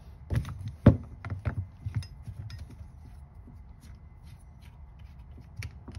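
Metal hand tool and fittings clicking and clinking against the metal housing of a Land Rover Td5 fuel pressure regulator as it is worked on. Irregular clicks, the two loudest in the first second, lighter and sparser after about two seconds.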